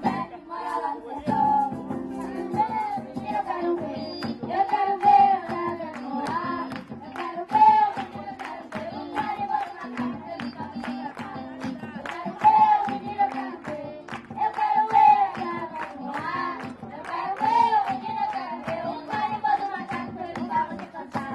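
A children's ensemble playing an instrumental carimbó: a melody on recorders over drums and guitar, with a steady driving beat.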